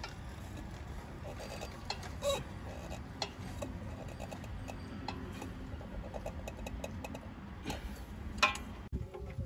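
Light metallic clicks and clinks of a hand tool working on a backhoe loader's engine parts, scattered irregularly over a low background rumble, with one sharper click near the end.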